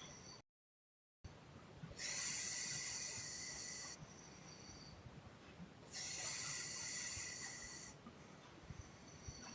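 A sleeping woman's breathing: two long, hissy puffing exhales of about two seconds each, some four seconds apart, with faint breathing between. Near the start the sound cuts out to total silence for under a second.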